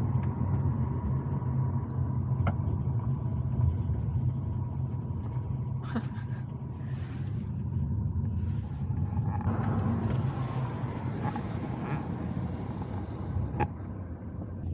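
Steady low rumble of engine and tyres heard inside a Volkswagen's cabin while driving, with a few sharp clicks scattered through it.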